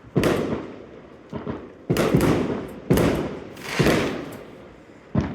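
Fireworks going off: about five sharp bangs roughly a second apart, each trailing off in an echoing rumble.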